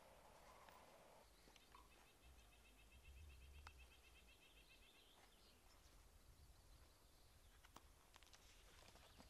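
Near silence: faint outdoor background with a faint, rapid high trill that lasts a few seconds from about a second and a half in, and a few soft ticks.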